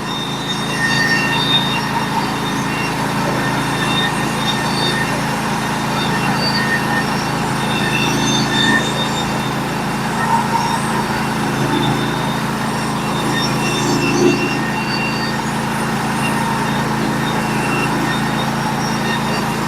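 Norwood HD36v2 portable band sawmill running steadily under load, its engine humming evenly as the band cuts a slab off a log.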